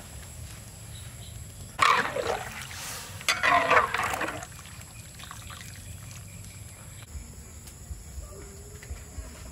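A metal ladle stirring the thick broth of a simmering pork rib curry in a wok, in two short spells of sloshing about two and three and a half seconds in.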